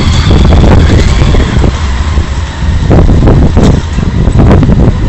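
A car rolling slowly over wet cobblestones and pulling up, its tyres and engine under a loud, steady low rumble. A few short knocks come about three to four and a half seconds in.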